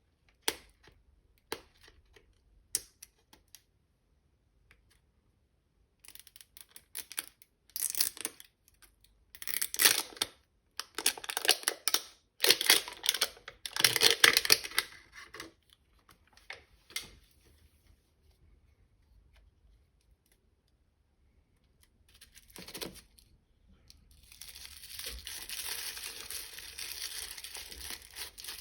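Toy packaging being unwrapped by hand: a few light clicks, then loud bursts of tearing and rustling, a quiet lull, and steady crinkling near the end.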